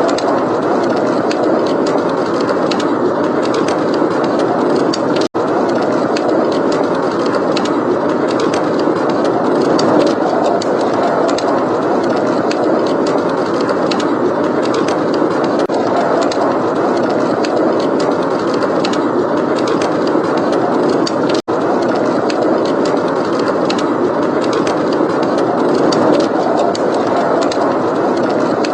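Steady blizzard wind blowing, with a wood fire crackling in small scattered clicks over it. The whole mix cuts out for an instant twice.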